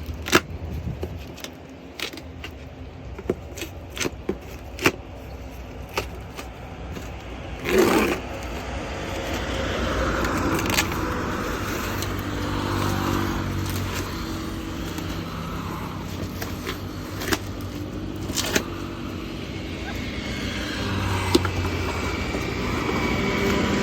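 Hard clicks, knocks and rattles of an impact-wrench case and its metal parts being handled and opened. A steady vehicle engine hum runs underneath and grows more prominent after about eight seconds.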